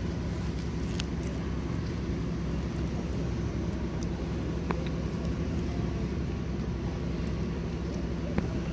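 Steady low engine hum at an even pitch, with a couple of short, faint clicks.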